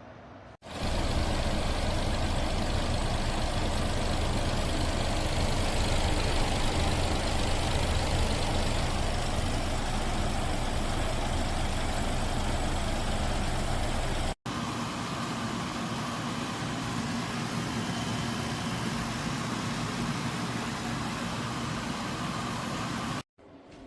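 Costway 14000 BTU portable air conditioner running, a steady hum with rushing airflow. It breaks off abruptly twice where the recording is cut, and after the first cut it has less low hum.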